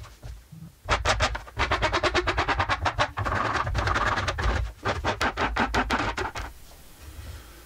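Metal hand file rasping along the corners of a wooden bucksaw side-piece, rounding them into a handle grip, in quick back-and-forth strokes several a second. It starts about a second in and stops about a second before the end.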